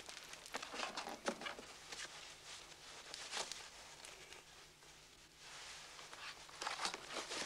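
Cardboard parcel handled and its twine untied: faint, uneven scratchy rustling of string and cardboard, quieter for a while a little past the middle.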